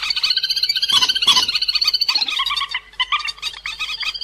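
Lure recording of cuốc biển, a waterbird of the rail family, calling: fast runs of short, high chattering notes that overlap one another, briefly quieter a little under three seconds in.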